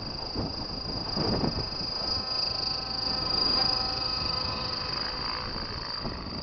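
Radio-controlled camera-carrier helicopter in flight, its rotors and drive giving a steady high whine over a humming drone that swells to its loudest a little past the middle as it passes close, while it lifts a 1.5 kg dummy camera weight. Wind rumbles on the microphone underneath.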